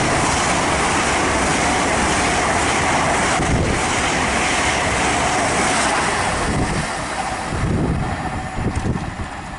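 A GWR Class 802 bi-mode train passing through the station at speed: a loud, steady noise of wheels and air that begins to fade about six seconds in, leaving gusts of wind on the microphone.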